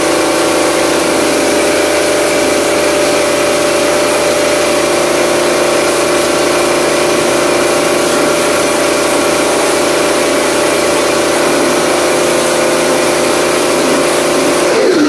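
Bosch Aquatak electric pressure washer running under load, its motor and pump humming steadily while the jet hisses against an AC evaporator coil. The pitch begins to fall at the very end.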